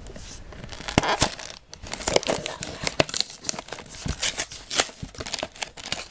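Small cardboard Lego set box being torn open and handled: tearing and crinkling of the card with many short clicks and scrapes.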